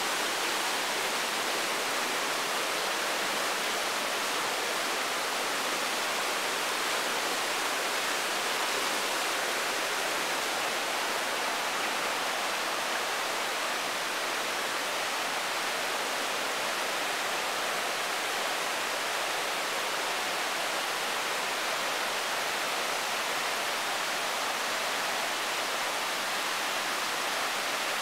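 River rapids rushing over boulders, a steady, even wash of white-water noise with no breaks or separate sounds.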